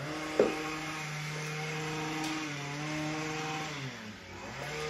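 Gas string trimmer (weed whacker) engine running steadily at high speed, heard from indoors through a window. Its pitch drops for about a second near the end, then climbs back. There is a short knock about half a second in.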